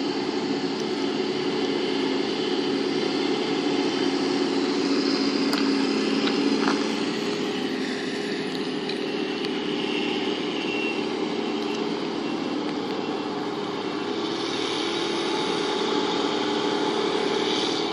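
Diesel farm machinery running steadily: a tractor pulling a loaded silage trailer, with more tractors and a forage harvester working further off.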